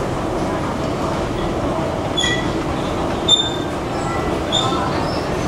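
Steady rumble of an underground metro station, with three short high-pitched squeals about two, three and a half, and four and a half seconds in.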